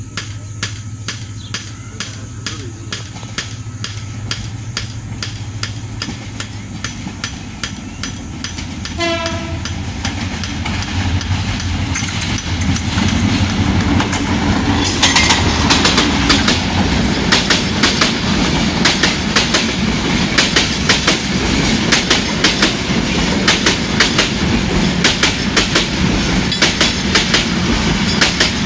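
A diesel locomotive hauls a passenger train past: the engine's hum grows louder as it approaches, with a short horn blast about nine seconds in. Then comes the rapid clickety-clack of the coaches' wheels over the rail joints as the train goes by.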